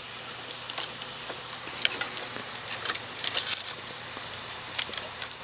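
Sticks of firewood being pushed into a burning rocket stove's feed opening: scattered clicks and light knocks of wood against the stove's metal, over a steady faint hiss.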